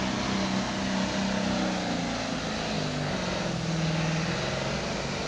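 Heavy super stock diesel pulling tractor's engine running hard under load down the pulling track, a steady engine drone whose pitch shifts a little as it goes.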